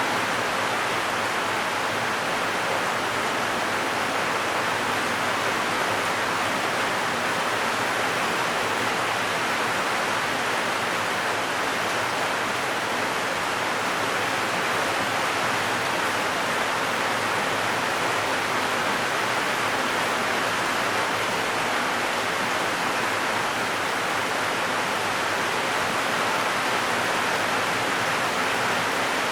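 Heavy rain drumming steadily on a zinc sheet-metal roof, a dense, continuous hiss of drops on the metal.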